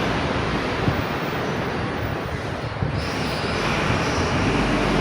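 Washing machine running with a steady, loud rushing noise.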